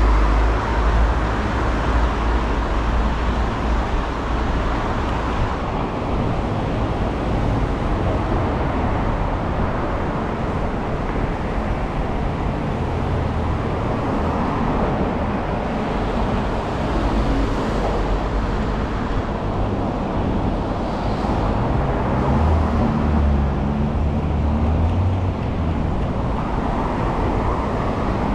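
City street traffic: a steady wash of car engines and tyre noise, with a heavier low engine rumble near the start and again about three-quarters of the way through.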